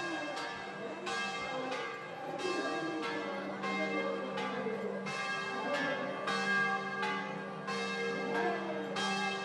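A large temple bell struck over and over, about one and a half strokes a second, each stroke ringing on into the next. A steady low tone and crowd voices sit beneath it.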